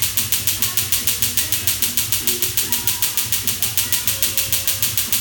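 Tattoo-removal laser handpiece firing on the skin: a rapid, even train of sharp snapping pulses, about five a second, over a steady low machine hum.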